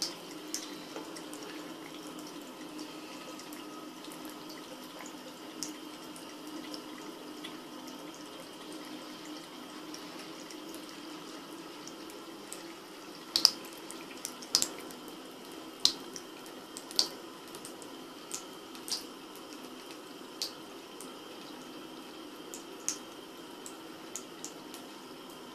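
Bathroom tap running a thin, steady stream into a ceramic sink while a cat drinks from it. From about halfway, sharp clicks come irregularly, roughly one a second.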